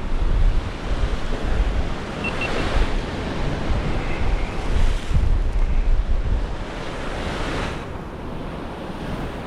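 Sea waves washing over the shore rocks, swelling and easing, with wind buffeting the microphone.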